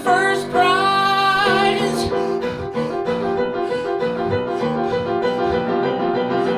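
Piano accompaniment playing evenly repeated chords, with a voice holding one sung note for about a second near the start.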